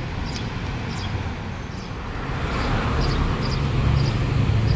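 Street traffic rumble that grows louder through the second half as a motor vehicle comes closer.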